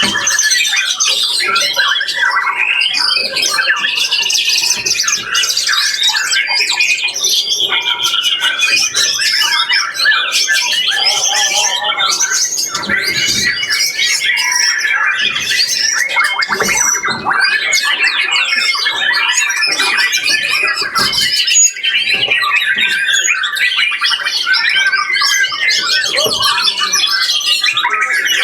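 Many caged songbirds singing at once in a dense, continuous chorus of fast warbling phrases, chatter and whistled notes, overlapping throughout.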